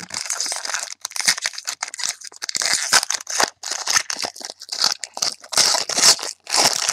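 Trading card pack wrapper crinkling and tearing as it is opened by hand, with cards sliding against each other: a run of rustling bursts with short breaks.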